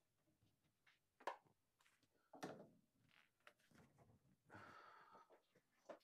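Faint, scattered knocks and clicks of hands-on work, the sharpest about a second in, with a brief scraping sound near the end.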